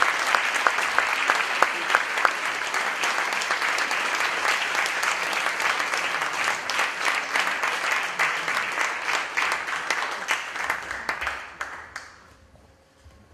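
A crowd clapping: dense applause that fades and dies away near the end.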